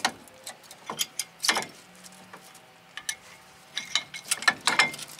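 Worn front brake pads of a 2012 Ram 1500 clicking and scraping against the rusted caliper bracket as they are worked back and forth by hand, stuck fast in the corroded bracket. Scattered sharp clicks and short scrapes, with a quicker run of clicks near the end.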